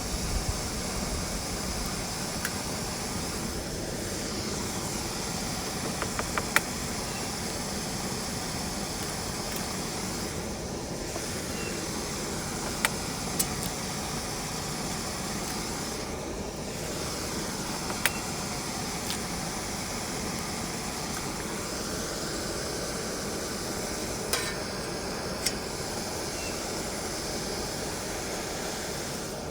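Food sizzling steadily in a frying pan, with a few sharp clicks of a utensil against the pan.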